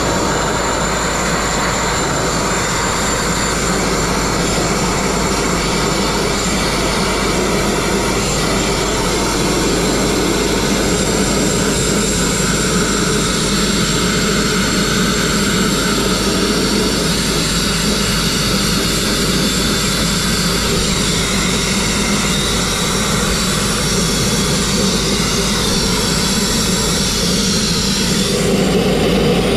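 Abrasive grit blasting: a stream of compressed air and grit from a hand-held blast nozzle hitting a steel truck chassis and stripping its blue paint and rust to bare metal. It is a loud, steady rushing hiss with a thin high whistle over it, and the upper part of the sound changes slightly near the end.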